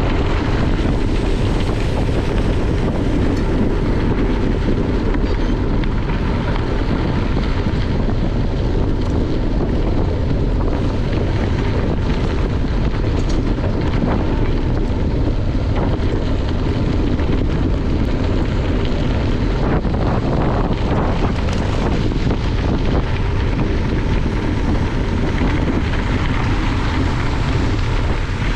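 Steady wind rushing over the microphone of a camera carried on a bicycle riding at speed on gravel.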